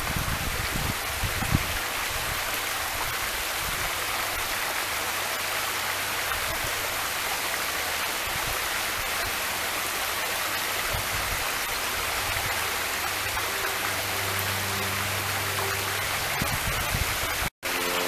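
Small waterfall pouring over limestone ledges and running through a shallow rocky creek: a steady rushing splash of water.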